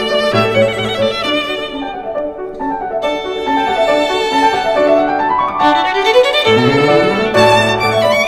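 Background music led by violin with a string and keyboard accompaniment; a melody line climbs in a rising run about six seconds in.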